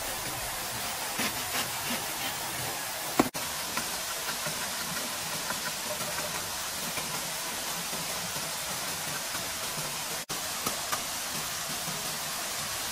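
A steady, even hiss with a sharp click about three seconds in; the sound cuts out for an instant twice.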